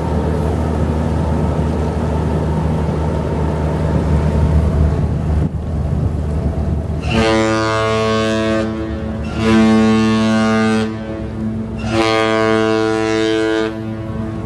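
A cruise ship's horn sounds three long blasts, each about one and a half seconds, a deep, rich, chord-like tone, with the middle blast the loudest. Before the blasts there is a steady low rumble of ship machinery.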